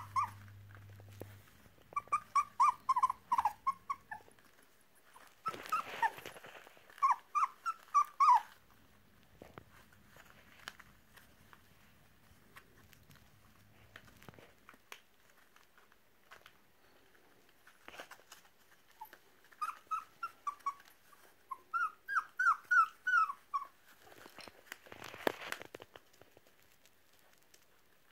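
Puppies play-fighting and yipping, in quick runs of short, high-pitched yelps and squeals. The yelping comes in three spells, about two seconds in, six seconds in and around twenty seconds in, with scuffling on the pad in between.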